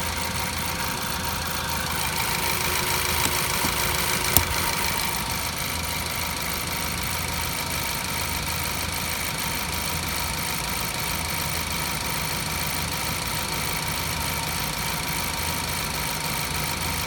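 2014 Ford Focus engine idling steadily, with a louder hiss from about two to five seconds in and a single sharp click near its end.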